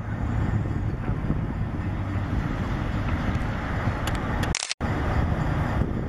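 Diesel switcher locomotive of the Adrian & Blissfield shortline approaching slowly with a freight train: a steady low engine rumble. The sound drops out for a moment near the end.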